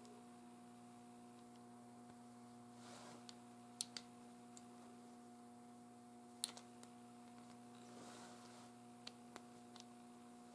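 Faint metal clicks of a Lee aluminium 12-gauge slug mold's blocks and handles being closed and opened by hand, a few sharp clicks scattered over a steady low electrical hum.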